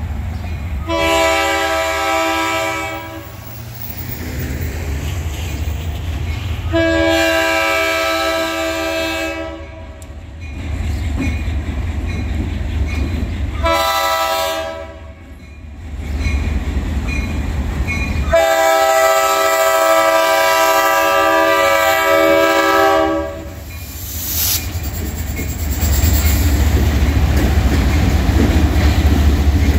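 Air horn of a Delaware-Lackawanna ALCO Century diesel locomotive sounding the grade-crossing signal: long, long, short, long, each blast a chord of several notes. Near the end the locomotives' diesel engines rumble past at close range, louder than before.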